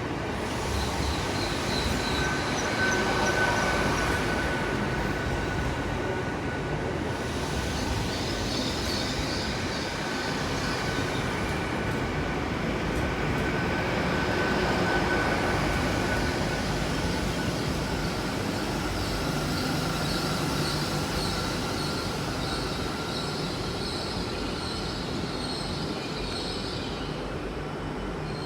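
A passenger train moving at a station platform, with a steady high-pitched tone and rumble throughout.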